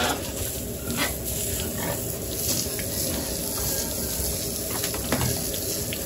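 Water spraying steadily from a hose nozzle onto pigs and the wet pen floor, with a few short pig grunts and squeals mixed in.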